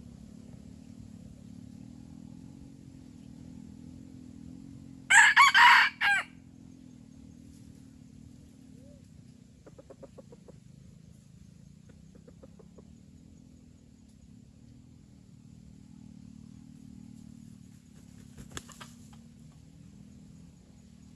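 Red junglefowl rooster crowing once, a loud, short crow about five seconds in. A few soft clucks follow, and a second, much fainter crow comes near the end.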